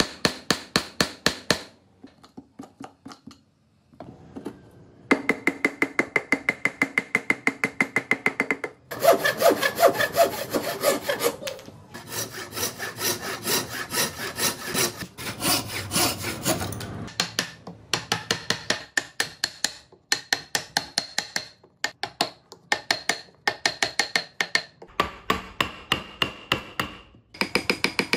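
Hand chisels and gouges cutting and scraping wood in rapid repeated strokes, about ten a second, coming in several short bursts with brief breaks between them.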